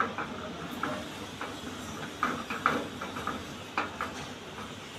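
Irregular light knocks and clicks, about ten in five seconds, from folded cloth bags being fitted into the metal spiral coils of an open bag vending machine, over a steady background hiss.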